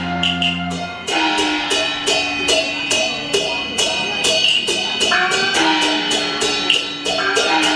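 Taiwanese opera (gezaixi) accompaniment music: a melody of long held notes that step and bend in pitch, over a steady clicking percussion beat of about four strokes a second.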